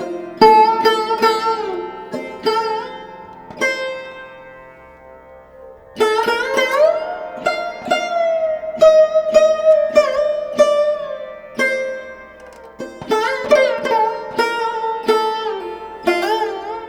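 Background instrumental music on a plucked string instrument, with bending, wavering notes played in quick runs. About four seconds in, a held note fades away, and the playing starts again about six seconds in.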